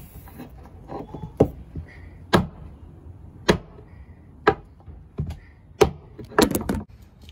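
Sharp metal-on-wood knocks, about one a second with a quick flurry near the end, as the heated Pro-50BK glow-engine case is driven down onto its crankshaft bearings against a wooden chopping board to seat the bearings.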